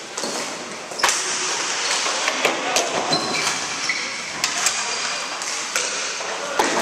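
Ball hockey play on a hard gym floor: sticks clacking and the ball knocking against sticks and floor in a quick irregular string of sharp knocks, with short high sneaker squeaks, all echoing in a large gym.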